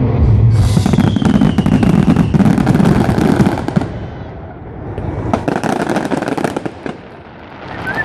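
Fireworks going off in quick succession, with booms and dense crackling. After about four seconds they thin out to scattered sharp cracks.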